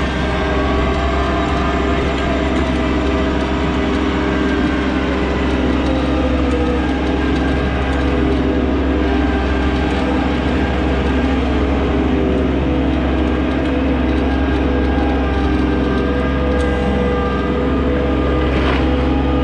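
Mahindra 1626 compact tractor's three-cylinder diesel engine running steadily as the tractor drives along, heard close up from the operator's seat.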